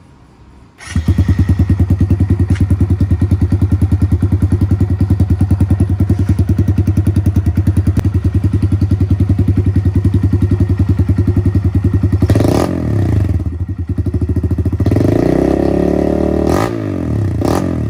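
Kawasaki KLX110's four-stroke single-cylinder engine, through a BBR D3 full aftermarket exhaust system, starting about a second in and idling with an even, loud pulse. Near the end it is revved a few times, rising and falling in pitch.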